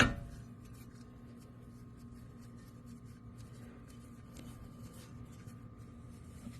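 Hand tools at work on a car's front brake caliper bolts: one sharp knock with a short ring at the start, then faint, scattered clicks and taps over a steady low hum.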